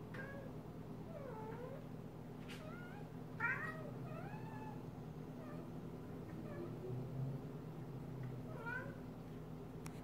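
Cat making short chirping meows while watching a moth it cannot reach: scattered single calls with a quick cluster about three and a half seconds in. A faint steady hum runs underneath.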